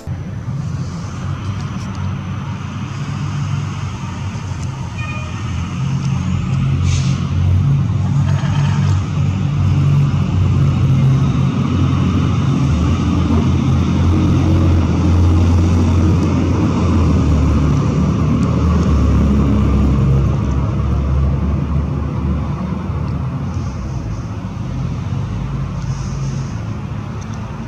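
Low, steady engine rumble of a motor vehicle that grows louder through the middle and eases off near the end, with a brief sharp click about seven seconds in.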